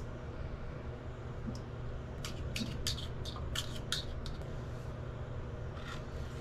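Light clicks and ticks from a pin and pigeon eggshell being handled over a toilet bowl: a quick run of them from about two to four and a half seconds in, over a steady low hum.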